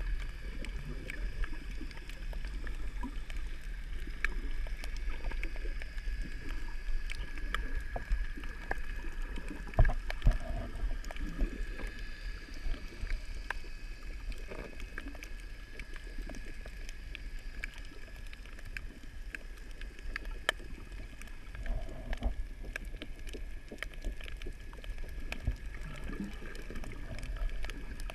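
Underwater ambience picked up by a submerged camera on a coral reef: a steady low rumble with a thin, steady high whine and scattered sharp clicks and crackles throughout.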